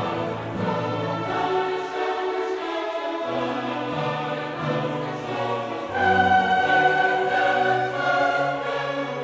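Orchestral music with a choir singing long held notes over moving bass notes. It swells louder about six seconds in, when a high sustained note comes in.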